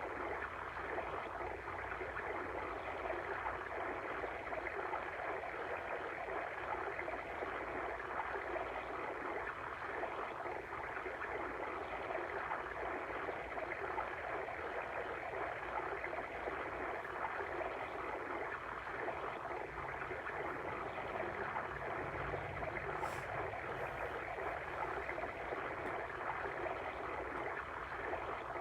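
Water stream running and babbling steadily.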